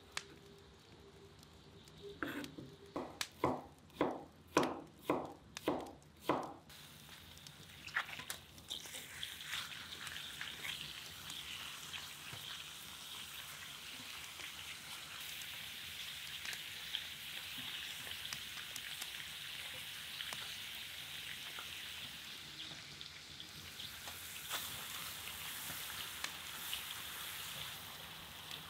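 A knife chopping onion on a wooden board, about ten sharp chops a couple of seconds in. Then, from about eight seconds in, meat sizzling steadily with small crackles as it fries in a cast-iron cauldron.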